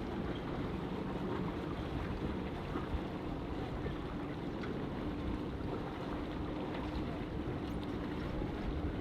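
Boat motor running steadily at low speed, with wind blowing on the microphone.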